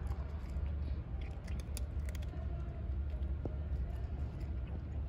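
A cat crunching dry kibble: scattered short crunches, most of them in the first half, over a steady low rumble.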